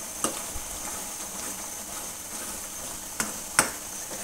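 Chicken karahi masala sizzling in a metal karahi as it is stirred and fried down (bhuna) with a metal spoon, with a few sharp clicks of the spoon against the pan, the two loudest near the end.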